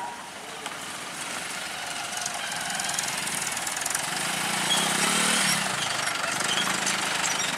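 Road traffic crossing a level crossing: motorcycles and a Mahindra tractor's diesel engine, which clatters and grows louder as the tractor nears, loudest about five seconds in.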